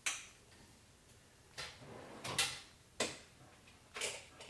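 Hand tools clicking and clinking: a ratchet and socket being handled, five or so sharp separate knocks with brief ringing after some.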